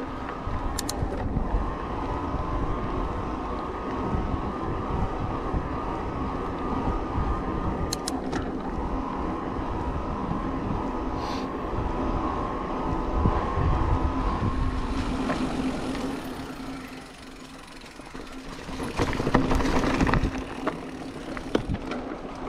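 Electric mountain bike riding along a trail: steady rumble of tyres and wind with a constant hum. It drops quieter for a moment about three-quarters of the way through, then swells louder again, with a few sharp clicks along the way.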